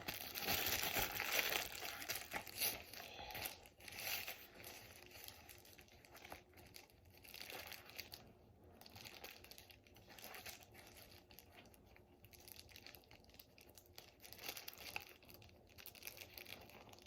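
Packaging being crinkled and torn open by hand: rustling and tearing, loudest in the first few seconds, then fainter scattered rustles.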